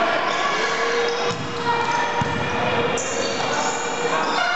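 Crowd noise in an echoing gymnasium during a volleyball rally: many spectators talking and shouting, with one long drawn-out call held for a couple of seconds, and the ball being struck and bouncing on the court.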